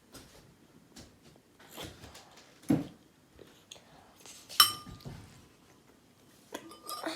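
Eating utensils clinking and knocking against a dish in a few scattered strokes. The loudest is a sharp ringing clink about four and a half seconds in, and a couple more ringing clinks come near the end.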